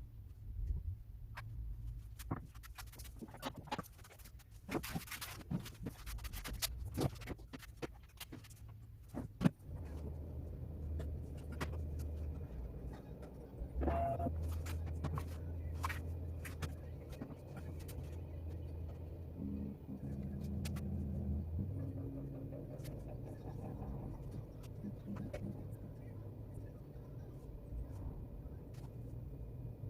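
Scattered clicks and rattles for the first several seconds, then the low steady hum of a CNC engraving machine's motors running, with a brief change in pitch about two-thirds of the way through.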